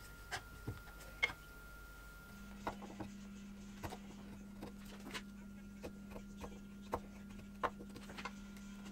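A few clicks of F-clamps being handled, then, from about two seconds in, a hand chisel paring a reddish hardwood strip, each cut a short sharp snick, a dozen or so at irregular intervals.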